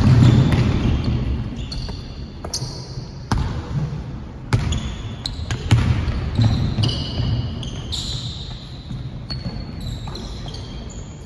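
Basketball bouncing on a hardwood gym floor during play, a few sharp bounces at irregular intervals, with running footsteps and short high sneaker squeaks, all echoing in the gym.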